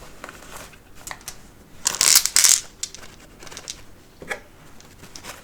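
A small bag of flat quartz stones being opened and handled: light clicks of the stones and rustling, with a louder rustle about two seconds in.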